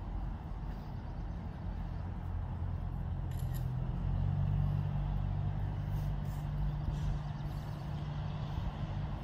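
Low, steady engine hum that grows louder about four seconds in and then holds.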